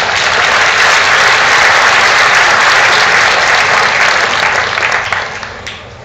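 Audience applauding, loudest through the middle and dying away about five seconds in.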